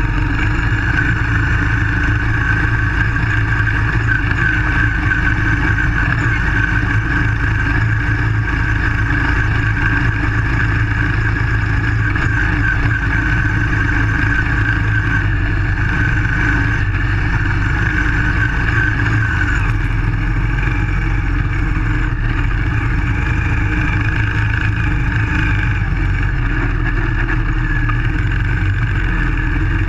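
Baja SAE off-road buggy's single-cylinder Briggs & Stratton engine running steadily under throttle, heard close up from a camera mounted on the car. Its steady drone changes pitch slightly about twenty seconds in.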